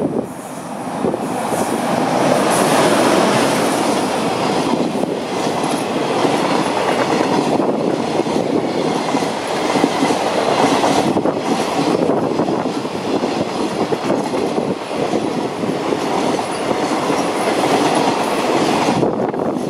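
JR Freight container train hauled by an EH500 electric locomotive passing through at speed. It swells over the first two seconds as the locomotive arrives, then holds as a loud, steady rumble of passing container wagons with clickety-clack wheel clatter.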